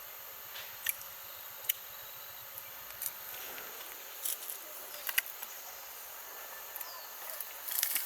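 A steady high-pitched hiss and thin whine, insect-like, with scattered light clicks and rustles every second or so and a short cluster of them near the end.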